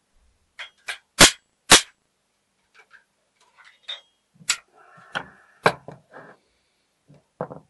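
Two sharp metal blows about half a second apart as the steel cover of a front-door lock over 100 years old is struck down on an anvil, followed by lighter clicks and knocks as the lock case is handled.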